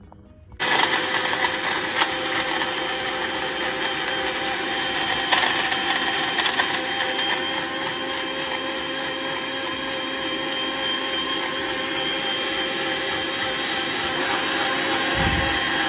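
Sujata electric mixer grinder starting suddenly about half a second in and then running steadily at speed, a loud motor whine blending watermelon, milk and ice cubes into a shake.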